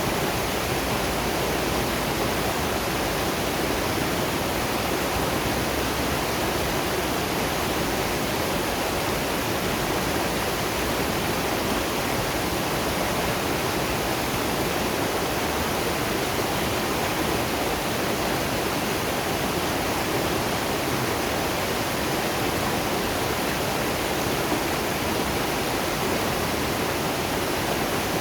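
Waterfall and river water running steadily: an even, unbroken rush of water that does not change.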